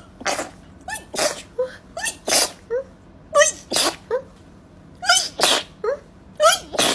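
A person sneezing over and over in a rapid sneezing fit, roughly one to two sneezes a second. Each sneeze is a short rising "ah" followed by a sharp "choo".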